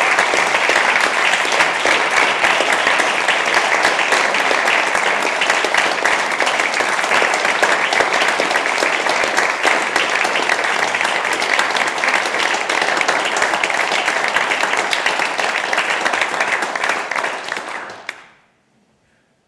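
Theatre audience applauding steadily, a dense patter of many hands clapping. It cuts off abruptly near the end.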